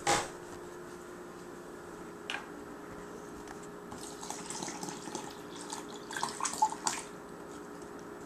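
Warm water poured from a plastic glue bottle into a plastic tub of glue, splashing and sputtering. The pouring comes mostly in the second half and is loudest near the end as the bottle is squeezed empty. A short rasp at the very start as the bottle's cap is opened.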